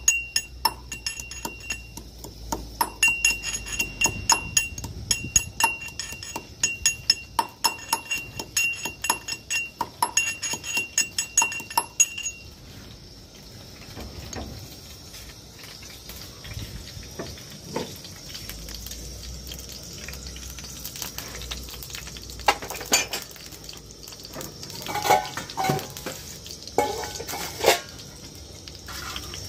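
Garlic pounded in a small stainless-steel mortar with a metal pestle: a quick, steady run of ringing metal-on-metal strikes that stops about twelve seconds in. Later a few scattered metal clinks of cookware follow.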